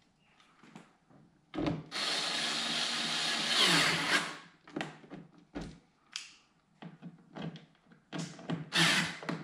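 Cordless screwdriver running steadily for about two and a half seconds, driving a screw into a plastic front-splitter winglet. A string of short scrapes and clicks follows as the part is handled.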